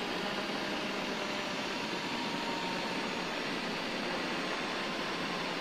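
Angle grinder with a 2.5 mm cutting disc cutting a slot between the blades of a Hastelloy X nickel-alloy turbine wheel blank: a steady, harsh grinding noise with a faint motor whine.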